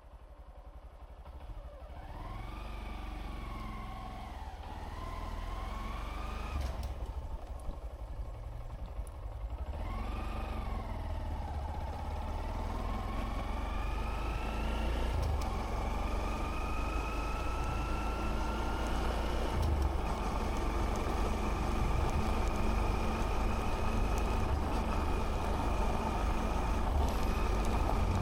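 Honda Monkey 125's single-cylinder four-stroke engine pulling away and accelerating through the gears, the pitch rising and dropping back at each shift in the first half, then settling to a nearly steady cruising note. A low rumble of wind on the microphone runs underneath and grows as speed builds.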